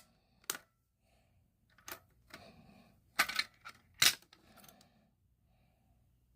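Fire alarm pull station, a Fire-Lite BG-12 series, being handled, opened and reset: about four sharp plastic-and-metal clicks and clacks, the loudest two about three and four seconds in, with faint rubbing between.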